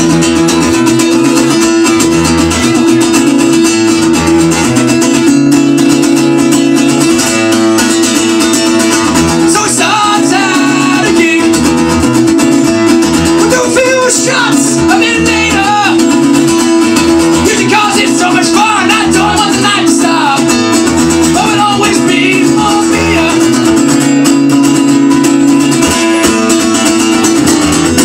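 Acoustic guitar strummed steadily in a live acoustic punk-folk song, with a man singing over it from about ten seconds in.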